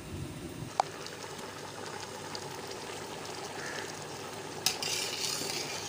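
A metal spatula clinks once against a steel cooking pot of rice boiling in stock. About five seconds in, a spoon scrapes and stirs through the cooked rice in the pot.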